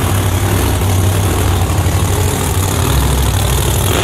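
Drag racing car's big engine idling loudly with a choppy, low rumble.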